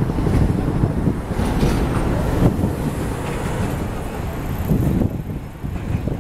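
Wind buffeting the microphone in uneven low gusts, over a steady low rumble of city traffic.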